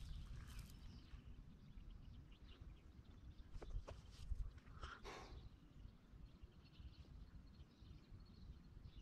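Near silence: faint outdoor ambience with a low rumble and a few faint clicks, and one brief, slightly louder sound about five seconds in.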